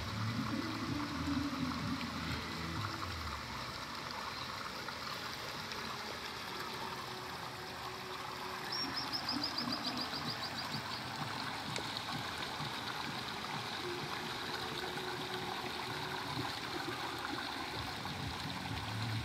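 Steady rush of running water. About nine seconds in, a short quick run of high clicks.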